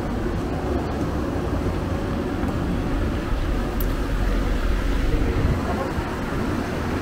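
Steady low rumble of outdoor background noise, heaviest in the deep bass and without any distinct events.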